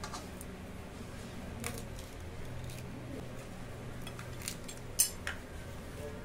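Banana leaf being folded by hand into a parcel around a piece of fish: scattered crisp crackles and light taps of the leaf against a steel plate, the sharpest about five seconds in.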